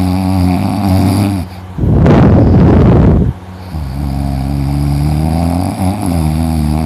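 A man snoring loudly in his sleep: a long buzzing snore, a noisy rushing breath out about two seconds in, then a second long buzzing snore.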